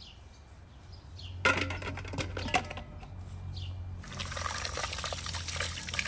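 Water pouring and splashing: a splashy run starts about a second and a half in, then a steady stream of water from about four seconds on. Birds chirp in the background.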